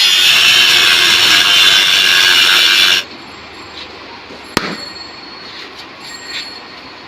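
A handheld power tool cutting out the metal rivet that holds a motorcycle number plate. It runs loudly, then stops abruptly about three seconds in. A single sharp metallic click follows about a second and a half later.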